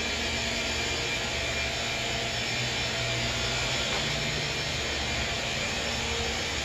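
Upright vacuum cleaner running steadily as it is pushed across the floor: a continuous even whir with a faint motor hum.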